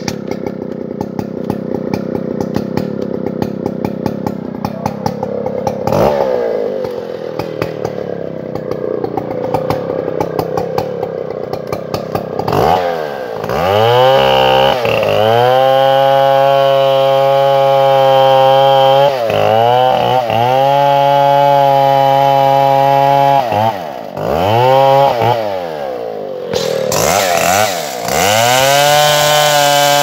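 Stihl MS 070 two-stroke chainsaw idling for about twelve seconds, then revved to full throttle as it cuts into a kapok trunk. The engine note dips and climbs back up several times as the throttle is eased and opened again in the cut.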